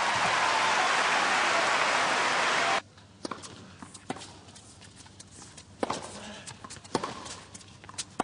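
Stadium crowd applauding after a point, cut off abruptly about three seconds in. Then, in a hushed arena, a tennis ball is bounced and struck back and forth by racquets: a string of sharp pops roughly a second apart.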